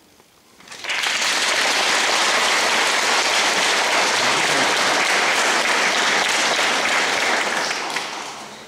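Audience applauding: the clapping starts about a second in, holds steady, and thins out near the end.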